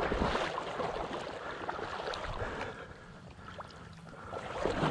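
Water sloshing and trickling around a small boat, with a few light knocks, as a shot teal is picked up out of the water.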